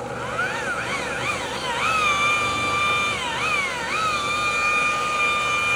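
Electric rotary buffer's motor whining as the trigger is worked: the pitch swoops up and down several times, then holds at a steady high speed, dips and rises twice more and holds steady again while the wool pad cuts the paint.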